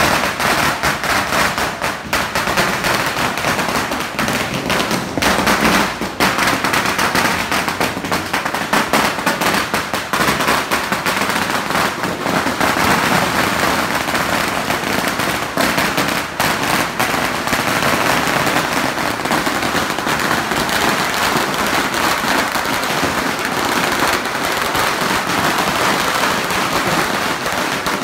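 A long string of firecrackers going off: it starts suddenly, then runs on as a dense, unbroken rattle of rapid loud pops.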